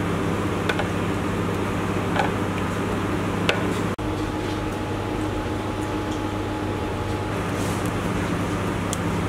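Steady mechanical hum of kitchen equipment, like a fan or air-conditioning unit, with a few light clicks and taps.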